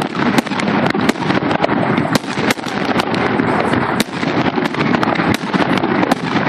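Fireworks display: many sharp bangs and cracks at irregular intervals, several a second, over a continuous din of further reports.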